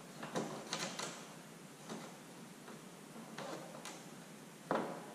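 Fibreglass trunk spoiler knocking and scraping against a car's tailgate as it is held up and shifted into position: a few light knocks and clicks at irregular intervals, the loudest near the end.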